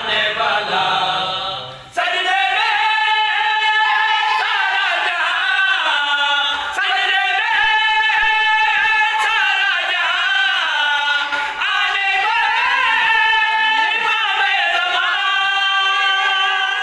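Unaccompanied devotional singing of a qaseeda: long held, wavering notes that slide between pitches. An abrupt cut about two seconds in, after which the singing runs on steadily.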